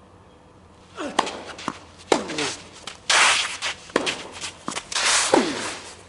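Tennis play on court, starting about a second in: sharp ball-strike and bounce clicks mixed with quick footsteps and shoe scuffs and squeaks on the court surface.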